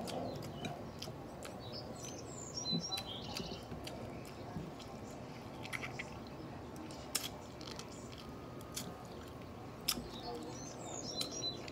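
Close chewing and small mouth clicks from someone eating fried pork ribs by hand. A small bird chirps in the background a few seconds in and again near the end.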